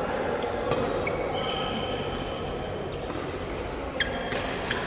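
Badminton rally in a reverberant sports hall: a few sharp cracks of rackets striking the shuttlecock, with short high squeaks of court shoes on the floor, one held for about a second.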